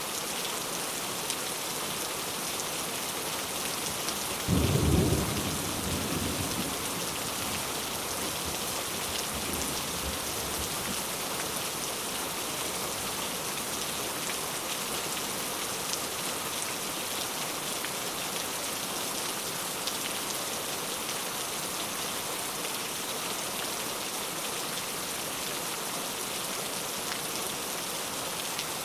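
Heavy rain falling steadily. About four seconds in, a loud low clap of thunder rumbles and dies away over a couple of seconds.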